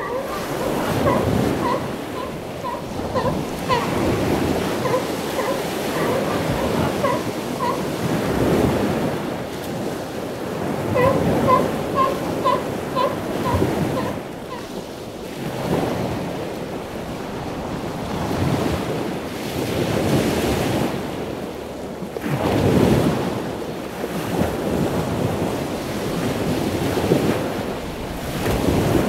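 Surf breaking and washing up on the shore in a steady rushing wash that swells and ebbs. Over it, in two runs during the first half, comes a series of short pitched calls, about two a second.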